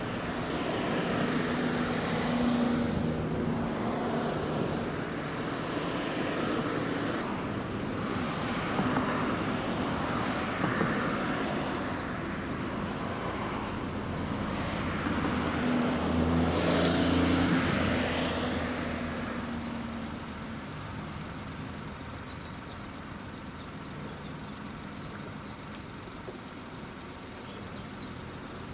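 Motor vehicles passing close by, their engine and tyre noise swelling and fading twice, loudest about two and about seventeen seconds in, over a steady low engine hum.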